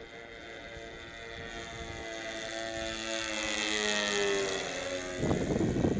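The twin engines of a Nitro Models P-38 radio-controlled warbird fly past overhead. Their steady engine note grows louder as the plane approaches and drops slightly in pitch as it passes. About five seconds in, a loud rough rushing noise cuts in.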